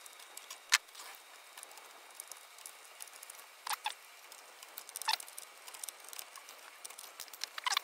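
Small sharp clicks and faint scraping as hand tools and fingers work at a camcorder's metal shield case: one click about a second in, a double click near four seconds, another near five, and a few more near the end.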